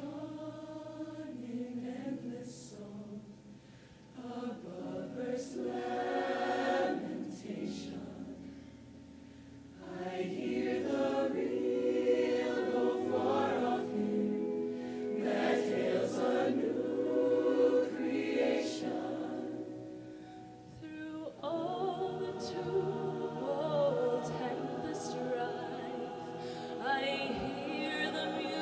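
High school show choir singing in parts, the full-voiced chords swelling and falling back quieter several times.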